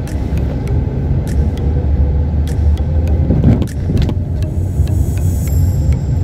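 Car engine and road noise heard inside the cabin while driving, a steady low rumble with a few light clicks.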